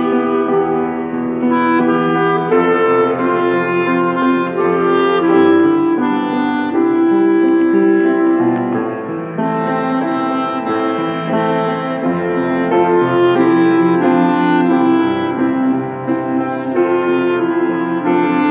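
Clarinet and piano duet playing a hymn: the clarinet carries the melody in held notes over piano accompaniment.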